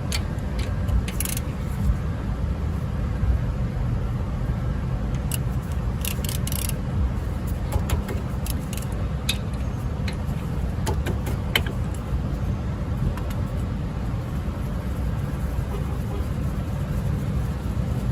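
Irregular metallic clicks and clinks of a 14 mm socket wrench on the front brake caliper's two bolts as they are undone, heard in a few clusters over a steady low rumble.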